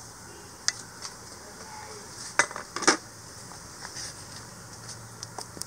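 Metal cookware clattering around an opened pressure cooker: a few light metallic clicks, then two louder clanks about half a second apart near the middle, then scattered light ticks.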